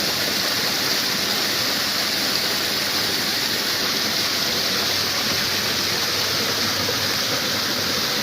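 Steady rush of water pouring out of a fishpond's drain outlet into a ditch.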